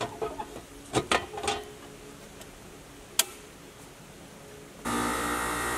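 A few knocks and clicks at the electrical box, a sharp click about three seconds in, then near the end the 2016 5-ton Rheem central AC condenser starts all at once into a steady hum from its compressor and newly replaced fan motor.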